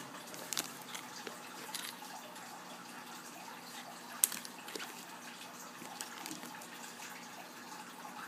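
Plastic wrapping and foam packing rustling and crinkling as they are handled, with scattered sharp crackles, the loudest about four seconds in.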